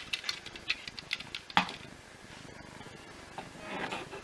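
Hard plastic chassis of a Vax Blade floor head clicking and knocking as it is handled and set down on a wooden table: a quick run of light ticks, then one louder knock about a second and a half in, and a soft rustle near the end.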